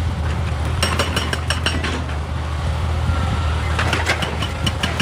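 Excavator's diesel engine running steadily, with bursts of short clicking and clanking, as of rock or steel knocking together, about a second in and again near the end.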